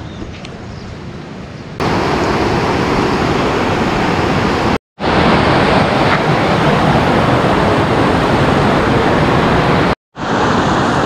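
Steady, loud rush of a fast-flowing rocky mountain river close by, starting abruptly about two seconds in and cutting out for a moment twice.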